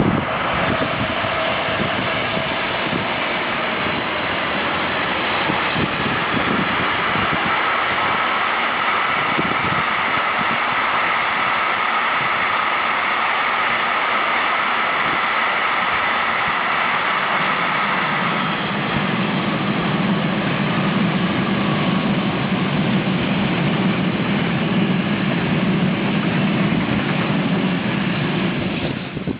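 A train passing close by: a steady, loud rolling noise on the rails, with a low hum joining in about two-thirds of the way through.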